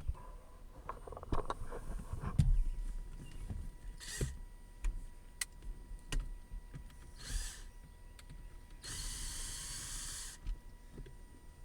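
Cordless drill-driver whirring in three short runs, the last one longest, as it backs out the center console screws. Clicks and knocks of handling come before the first run.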